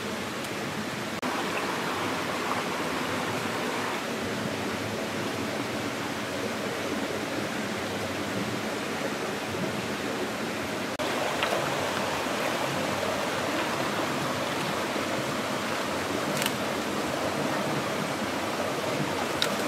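Shallow stream flowing: a steady rush of running water, a little louder after about a second and again after about eleven seconds.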